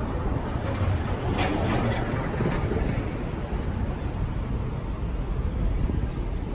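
City street traffic noise, with wind rumbling on the phone's microphone.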